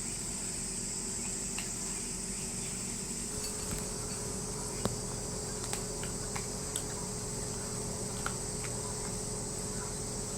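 Steady high-pitched chorus of crickets or other insects, with a handful of light clicks and taps, the sharpest about five seconds in.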